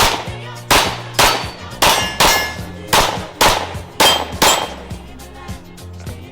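Nine shots from a 9mm PSA Dagger Carry pistol with a compensator, fired mostly in quick pairs over about four and a half seconds. Each shot has a short metallic ring after it.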